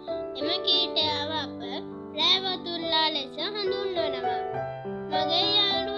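Background music: a high, child-like singing voice over steady keyboard notes.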